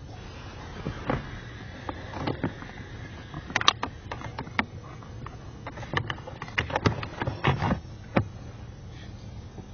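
Irregular clicks and light knocks of small hard objects, more than a dozen, bunched in two clusters, over a steady low background noise.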